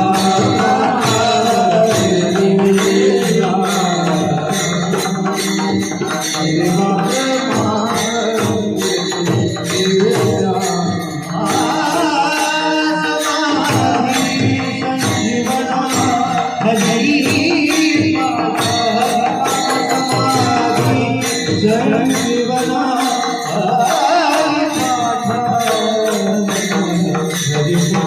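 Devotional singing: a solo voice with long, bending held notes over steady rhythmic hand percussion and jingles.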